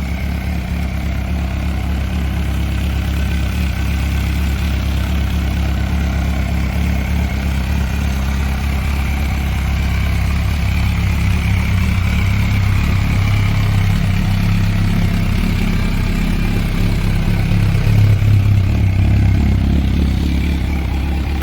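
MV Agusta F4 750S's 750 cc inline-four engine, fitted with a catalytic-converter eliminator and a sport air filter, idling steadily just after a first-try start, slightly louder in the second half.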